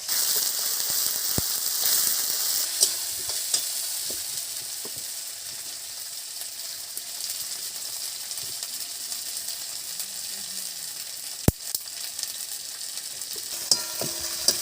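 Cumin paste and fried onion sizzling in hot oil in a kadai while being stirred, the sizzle loudest at the start and slowly easing, with scattered clicks of the spatula on the pan and one sharp knock later on.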